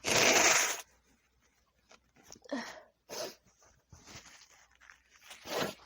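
A woman sneezing once, loudly, at the very start, straight out of a short intake of breath. A few short, quieter breathy sounds follow.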